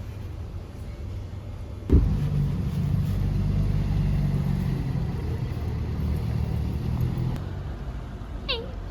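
Low, steady rumble of a motor vehicle's engine, starting with a sudden thump about two seconds in and easing off near the end.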